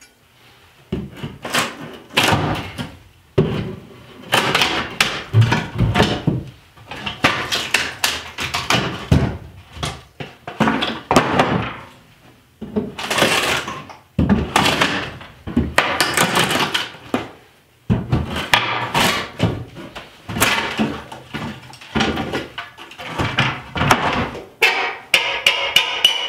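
Old subfloor boards being pried up and torn out over the floor joists: irregular knocks, cracking wood and scraping in short bursts every second or two.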